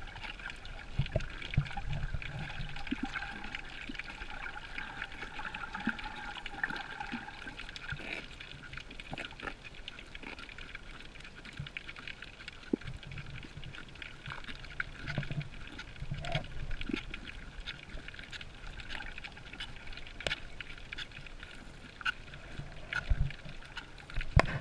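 Underwater ambience picked up by a camera in a waterproof housing: a steady muffled water hiss with many scattered sharp clicks and crackles, and occasional low thumps of movement.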